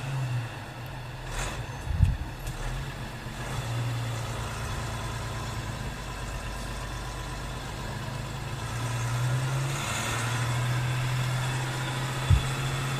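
Sound-library recording of a diesel car engine running at a steady idle, swelling slightly about two-thirds of the way through, with a short knock about two seconds in and another near the end.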